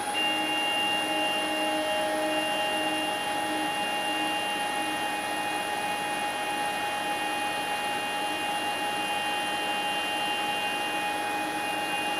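6040 CNC router's Z-axis stepper motor whining steadily as it drives the spindle head upward on its lead screw during a jog to check the spindle's travel with a dial indicator. The whine starts just as the move begins and holds at a steady pitch over a constant electrical hum.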